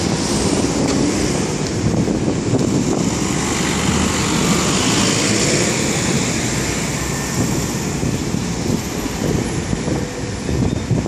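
Road traffic: cars, taxis and minibuses driving past close by, a steady rush of engines and tyres that swells about halfway through.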